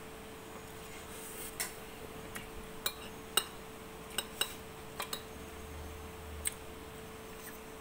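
Metal fork and spoon clinking and scraping against a ceramic plate while scooping fried noodles: about eight sharp clinks spread over several seconds, over a steady faint hum.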